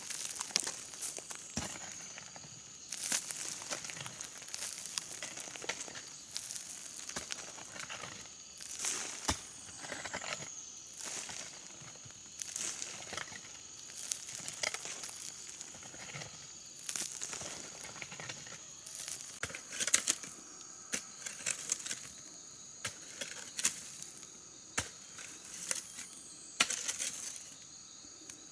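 Irregular crinkling and crackling with sharp snaps, the sound of dry forest material being handled, over a steady high-pitched insect drone.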